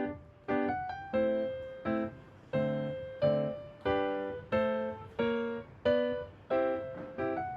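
Background music: piano chords struck about once or twice a second, each ringing and fading, with no singing.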